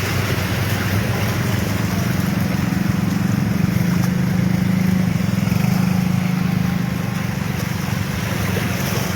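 A vehicle engine running low and steady as it moves slowly through floodwater, swelling louder about midway and then easing off, over a continuous hiss of water and rain.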